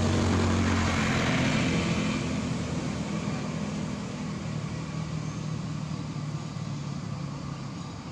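A motor vehicle's engine running steadily, loudest at the start and fading gradually as it moves away.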